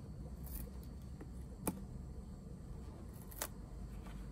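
A plastic opening tool prying along the edge of a Samsung Galaxy J3 Prime's heat-softened screen to free it from the frame: two sharp clicks about a second and a half apart and faint scraping, over a low steady hum.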